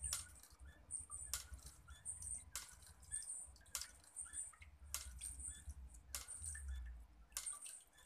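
Water trickling and dripping in a miniature water-wheel fountain, with a sharp drip or tick repeating about every second and a quarter.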